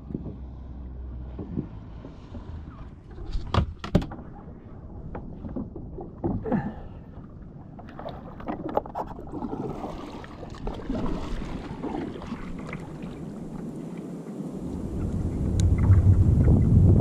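Water slapping and gear knocking on a fishing kayak at sea, with two louder sharp knocks about three and a half and four seconds in. Near the end wind buffets the microphone.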